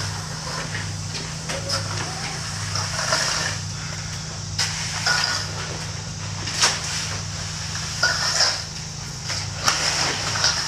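Gauge rake scraping and crunching through resin-coated pebbles as they are spread, in irregular strokes. A steady low hum runs under it.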